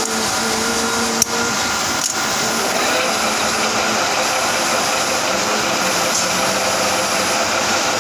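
Manual metal lathe running steadily, a constant machine hum with several steady tones, with a sharp click about a second in and a fainter one shortly after.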